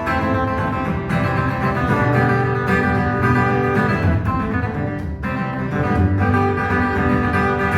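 Acoustic guitar playing an instrumental passage between sung verses of a song, continuous sustained chords with no voice.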